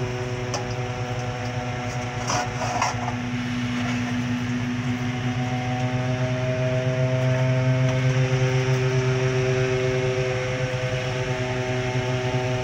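A small engine running steadily at a constant speed, with a brief clatter about two and a half seconds in.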